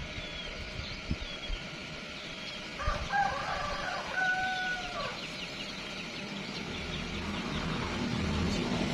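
A rooster crowing once in the background: a single drawn-out call of about two seconds, a few seconds in, over a steady low background noise.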